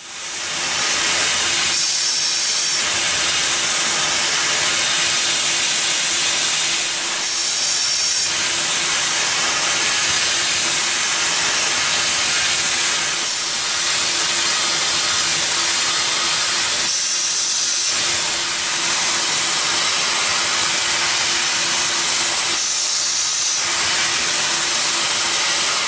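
High-speed CNC spindle driving a DRB230 R0.5 long-neck ball end mill through tough pitch copper, a steady hiss of oil mist and cutting over a faint hum, through roughing and finishing passes. Four brief shriller whines stand out, about 2, 7.5, 17.5 and 23 seconds in.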